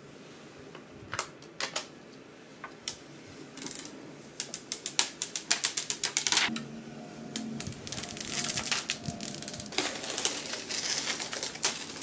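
Clear protective plastic film being peeled off a graphics card's backplate, crackling in quick irregular clicks that start sparse and grow denser and louder from about four seconds in.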